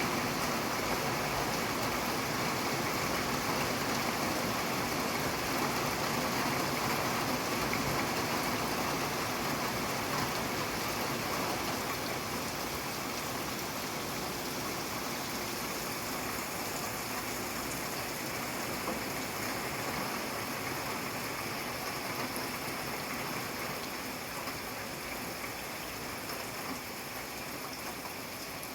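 Steady rain falling, a dense even hiss that eases slightly over the last part.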